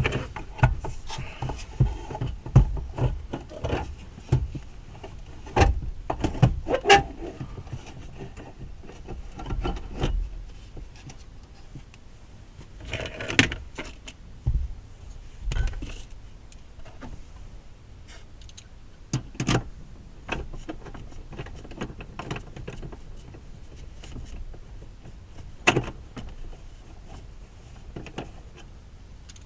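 Irregular clicks, knocks and scrapes of plastic and metal as an aftermarket car radio in its mounting bracket is slid into the dash opening of a 2004 Ford Explorer, with a few longer scraping stretches about halfway through.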